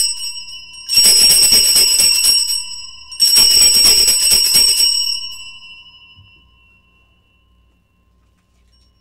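Altar bells, a set of small Sanctus bells, shaken at the elevation of the chalice during the consecration. A ring already under way dies down, then two more shaken peals follow about two seconds apart, the last ringing on and fading out.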